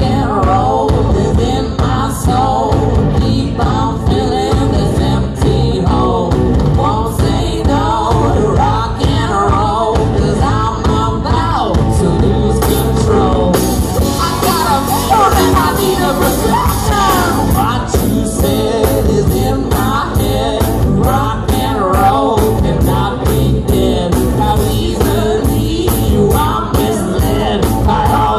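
A live rock band playing, with a male lead vocal over electric guitar, bass guitar and drums. The sound grows brighter about halfway through.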